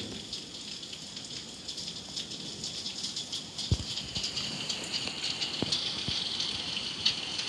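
Heavy rain pattering and hissing steadily outside an open window, with a few soft low thumps in the middle.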